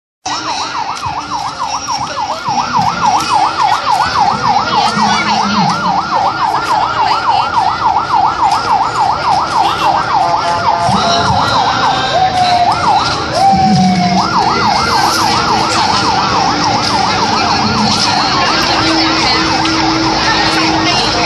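Vehicle siren on a fast yelp, its pitch sweeping up and down several times a second. A little past the middle it breaks into a few stepped tones, then the yelp resumes. Crowd noise underneath.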